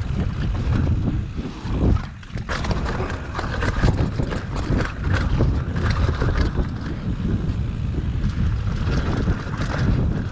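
Mountain bike descending rough singletrack: tyres rumbling over dirt and roots, with the chain and frame rattling in a constant run of clicks and knocks, and wind on the microphone. The noise drops away briefly about two seconds in.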